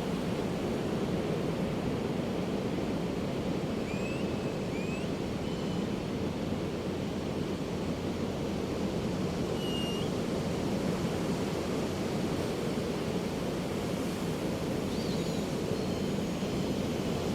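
Pacific surf washing steadily onto a beach, with a few short seagull calls scattered through, the first pair about four seconds in and others around ten and fifteen seconds.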